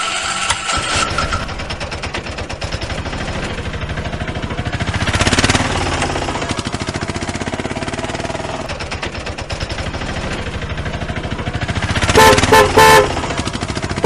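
Auto-rickshaw engine sound effect puttering steadily, swelling briefly about five seconds in, then three short horn toots near the end.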